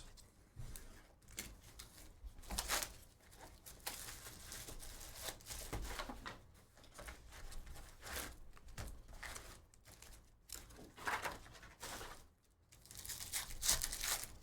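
Foil trading-card pack wrappers being torn open and crinkled, with cards being handled: a run of irregular rips and rustles.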